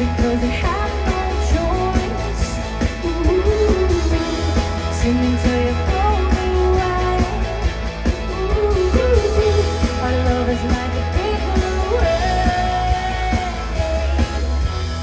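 Indie-pop band playing live on an outdoor stage sound system: a song with guitar and a heavy, pulsing bass line under a gliding melody.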